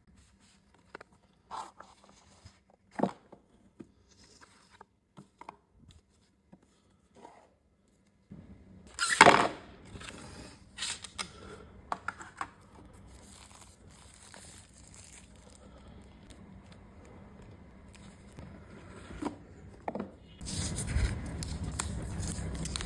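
Cardboard and paper packaging of a boxed smartphone being opened by hand: scattered taps and slides of cardboard, and one loud rip about nine seconds in. From about twenty seconds on, a steady crinkling rustle of the plastic protective film on the phone as it is handled and peeled.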